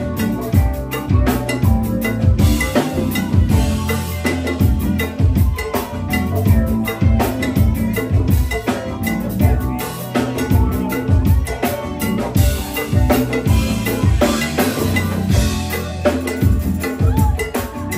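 Live go-go band playing: a steady drum-kit beat of kick and snare over a heavy bass line, with cymbal crashes swelling twice.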